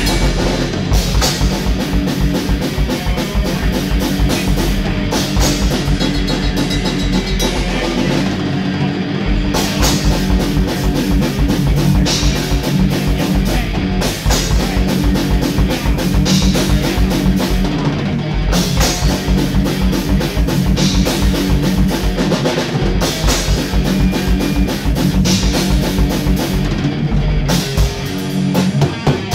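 Heavy metal song with a drum kit playing a fast, busy bass-drum pattern under distorted guitar.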